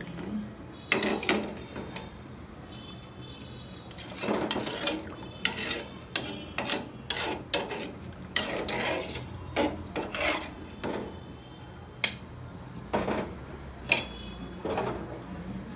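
Flat metal spatula scraping and stirring against the sides and bottom of an aluminium pot of curry, in irregular strokes. There are a few sharp metal clinks, the loudest about fourteen seconds in.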